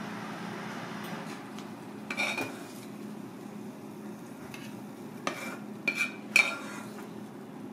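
Metal ladle clinking against a glazed ceramic plate as stir-fried clams and vegetables are spooned out: about five short ringing clinks, the loudest near the end, over a steady low hum.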